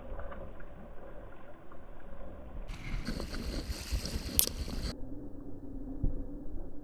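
Choppy river water sloshing and lapping close to a camera at the waterline, with a low rumble throughout and one sharp click about four and a half seconds in.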